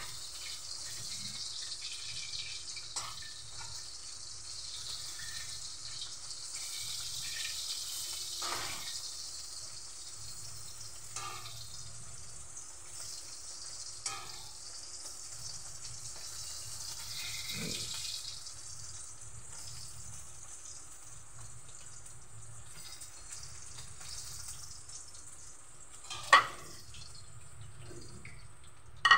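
Pork pieces deep-frying in hot oil: a steady sizzling hiss that swells and eases, with a few light clicks and a sharper knock near the end.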